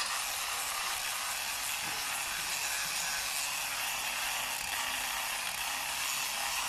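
Handheld electric rotary carving tool grinding into wood, a steady high hiss that holds at an even level throughout.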